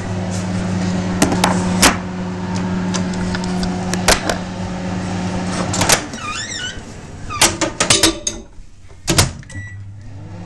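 Electric fan oven humming steadily while bread goes in, with clicks and clunks of the oven door and trays. The hum stops about six seconds in, a few knocks and a thud follow as the door is shut, and a short beep sounds as the timer is set on the control panel, after which the hum comes back.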